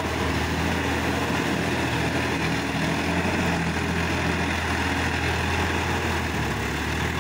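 Sonalika DI-50 RX tractor's diesel engine running steadily while it pulls a rotary tiller through wet puddled mud.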